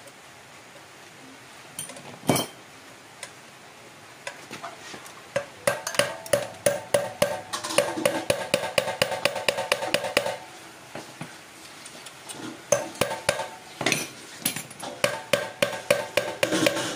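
A hammer tapping on a metal motorcycle part: one hard single blow, then two long runs of quick taps, about three or four a second, each ringing briefly like struck metal.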